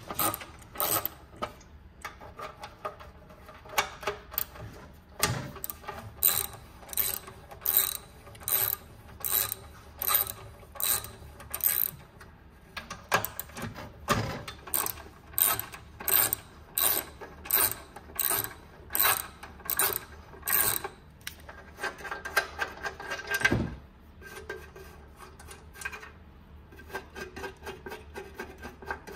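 Ratchet wrench with socket clicking in short runs, repeating roughly every second, as bolts are backed out of the top cover of a two-stroke snowmobile engine. There is a louder knock a few seconds before the end.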